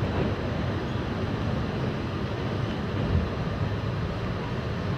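New York City subway train running through a tunnel: a steady rumble of wheels on rail, with one brief knock about three seconds in.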